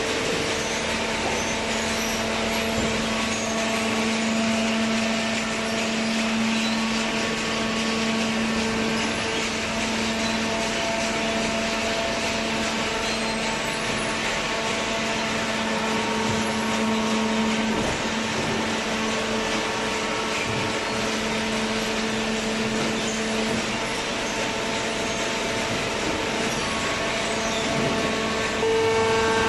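Hydraulic cardboard baler's electric motor and pump running with a steady hum, stepping up in level about a second before the end.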